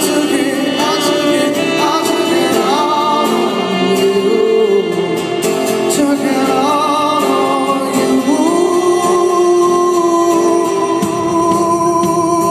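Live acoustic guitar and singing, the voice settling into one long held note about two-thirds of the way in.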